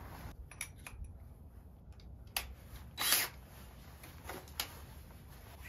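Handling noise as a plastic 5-gallon bucket is tipped over onto its side in hay: a few light clicks and knocks, and a brief rustling scrape about three seconds in, the loudest sound.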